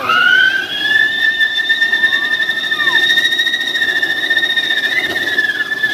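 Whistling firework: a shrill whistle that sweeps quickly up in pitch as it lights, then holds one steady high note, with faint crackling underneath.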